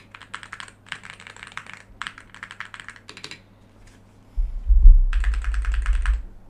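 Typing on the Aula Hero 84 HE keyboard's magnetic Hall-effect switches: rapid runs of key clicks in several bursts with short pauses. About two thirds of the way in a loud low rumble comes in under the typing.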